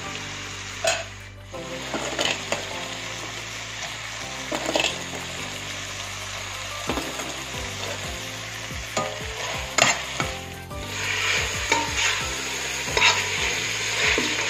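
Chicken and prawns frying in masala in a steel pot, sizzling steadily as they are stirred, with the spoon knocking and scraping against the pot now and then.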